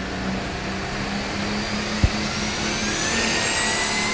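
John Deere super stock pulling tractor's engine running on the starting line. A single sharp knock comes about two seconds in, and then a high whine climbs steadily in pitch.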